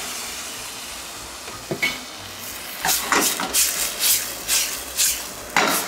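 Lamb ragu loosened with water sizzling in a stainless steel sauté pan on a gas hob, then repeated metal scrapes and clinks in the pan, about two a second, from about three seconds in.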